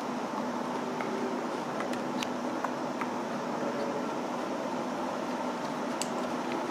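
Steady hum of building ventilation, with a few faint clicks scattered through it.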